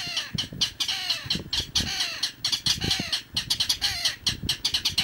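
Two mangrove rails (Rallus longirostris) calling together in a duet: a fast, continuous series of harsh clattering notes.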